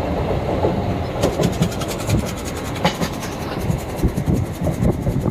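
Inside a moving passenger train: the steady rumble of the running train, with a fast run of sharp metallic rattling from about a second in until near the end.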